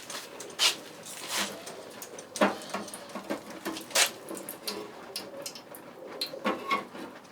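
Quench oil crackling and popping irregularly around the hot steel axe edge as it cools in the oil, with a faint hiss underneath.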